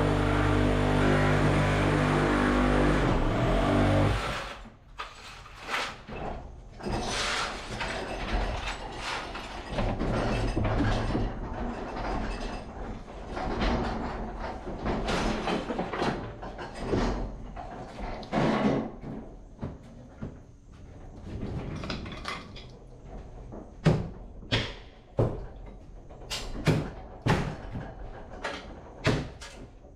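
A steady droning tone that cuts off about four seconds in, then renovation work: irregular knocks, bangs and scraping, ending with a run of sharp knocks about one a second.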